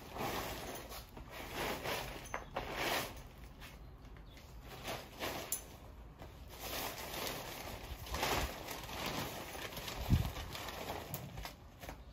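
Nylon tent fabric rustling and crinkling in uneven swells as a dome tent is spread out flat on concrete, with a dull thump about ten seconds in.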